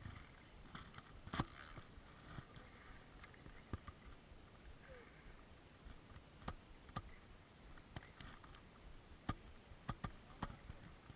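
Faint, scattered knocks and clicks, about a dozen short sharp ones spread irregularly over a quiet background.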